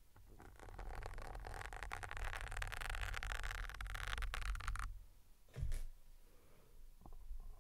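Dress pins being worked and pulled through a foam microphone windscreen right at the microphone: a close, scratchy scraping and rustling of foam with fine clicks for about five seconds. Then comes one soft thump and a few faint touches.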